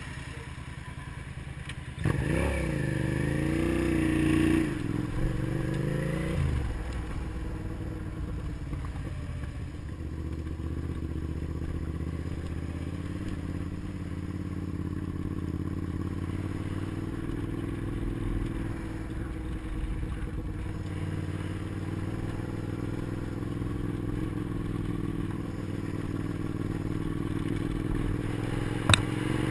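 Motorcycle engine, heard from the rider's position: low at first, then revving up and down through gear changes from about two seconds in, then running steadily at riding speed. A sharp click near the end.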